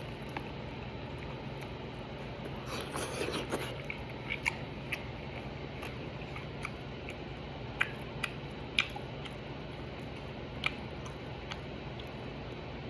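A person eating chicken, with faint chewing and a few single sharp clicks, over a steady low hum. A short rustling noise comes about three seconds in.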